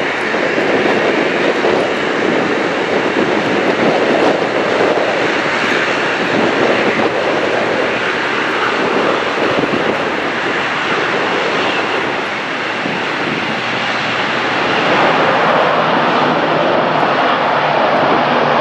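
Twin-turboprop airliner's engines running on the runway: a steady rushing noise that dips briefly past the middle, then grows a little louder.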